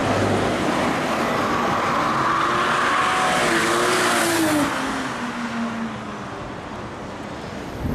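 BMW M5 drifting past: its engine revs with pitch rising and then falling, under a loud rush of tyre noise. The sound is loudest about four seconds in, then fades as the car goes away.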